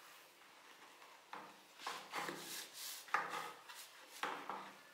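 Iron scissors being scrubbed by a gloved hand in a tub of soapy water: irregular swishes and splashes of water with rubbing. It starts about a second in.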